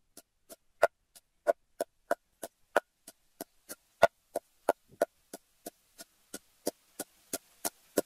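Wooden pestle pounding an herb paste in a heavy mortar: steady knocks about three a second, some louder than others.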